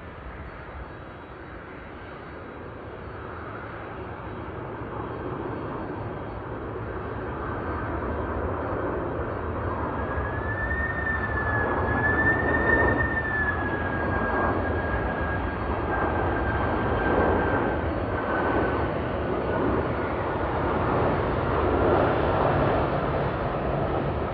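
Jet airliner's engines growing louder as it approaches, then holding loud as it passes, with a high engine whine that drops slowly in pitch in the second half.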